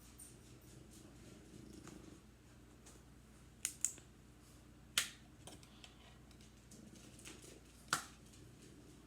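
A dog snoring softly, a faint low steady rumble that swells in the first couple of seconds. Four short sharp clicks cut in over it: two close together past the middle, then one at about five seconds and one near the end.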